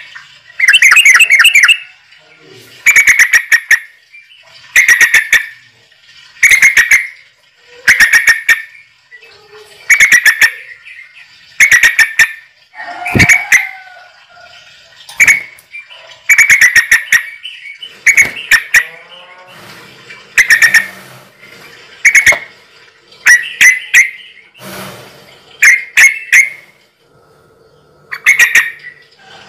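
A bird's loud, buzzy calls, repeated about every one and a half to two seconds.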